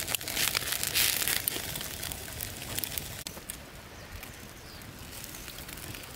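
Crackling and rustling of split-bamboo skewers being handled over a small wood fire, dense for about three seconds. Then it drops suddenly to a quieter hiss with scattered crackles from the fire.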